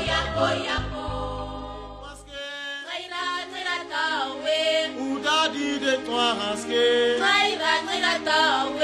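Background music: a song with a low bass beat fades out about two seconds in, and a choir then starts singing in a chant-like style.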